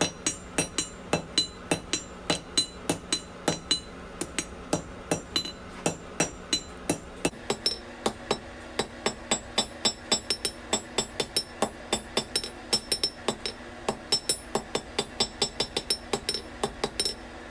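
Hammer forging a hot railroad spike on an anvil to draw out a four-sided taper: a steady run of about three to four ringing blows a second.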